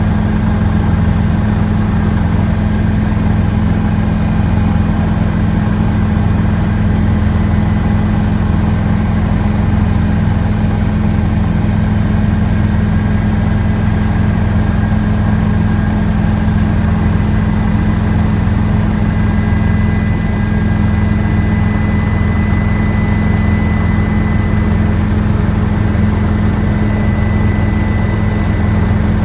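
Helicopter in flight: the steady, loud drone of engine and rotor, with a thin high whine on top that grows a little stronger near the end.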